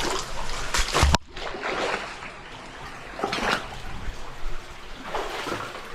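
Water splashing and sloshing in several uneven bursts as people wade through a flooded cave passage, the loudest splash about a second in.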